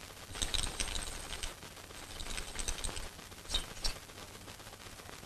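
Distant gunfire: two runs of rapid crackling shots, each lasting about a second, then two single sharper cracks near the four-second mark.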